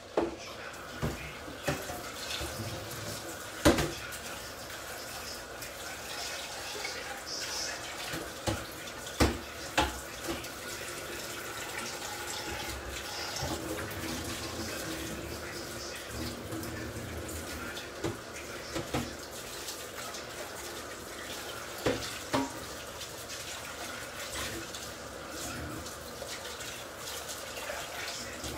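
Thick tomato sauce simmering in a pan on a gas stove, with a second pan of pasta finishing beside it: a steady bubbling hiss broken by scattered sharp pops, the loudest about four seconds in.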